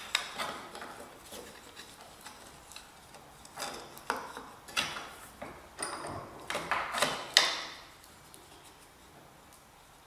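Wooden packing blocks and a sheet-metal part clicking and knocking against the jaws of a bench vise as they are set in place and clamped: a scatter of sharp taps, loudest a little past halfway.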